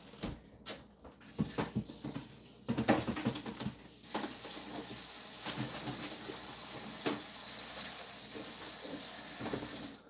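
Knocks and clatter of kitchen things being handled, then a steady hiss from about four seconds in that cuts off suddenly near the end.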